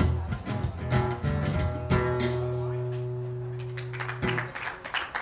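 Acoustic guitar strumming the final bars of a song and ending on one last chord that rings for about two seconds before it is damped; applause starts up near the end.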